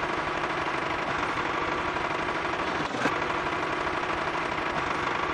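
Small motor of a homemade miniature toy tractor running steadily, with a faint click about three seconds in.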